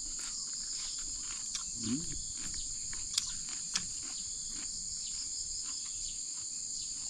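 Steady high-pitched chorus of insects chirring, with a few light clicks scattered through it.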